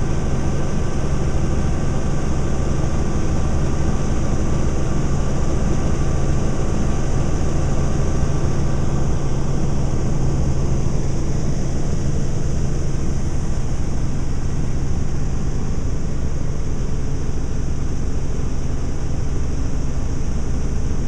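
Helicopter flying, heard from inside the cabin: a loud, steady low drone of engine and rotor. Some higher steady tones in it fade out about halfway through.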